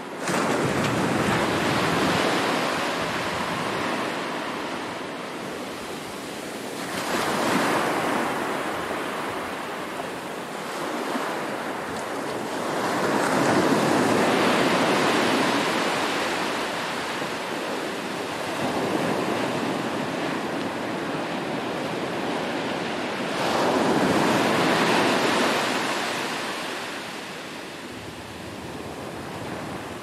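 Ocean surf breaking on a sandy beach and washing up the shore, wave after wave, each surge swelling and fading every several seconds.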